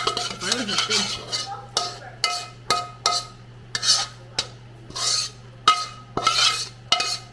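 A metal utensil scraping and knocking against a pan of fried rice, in irregular strikes about two a second, each with a short metallic ring.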